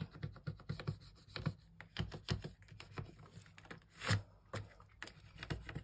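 Scratch-off coating being scraped off the circles of a paper savings-challenge card: a run of short, irregular scratching strokes, one stronger scrape about four seconds in.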